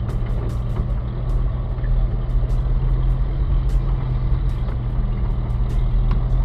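Old Toyota Hilux pickup running steadily at low speed, a steady engine hum with road noise and small scattered clicks and rattles, heard from inside the cab.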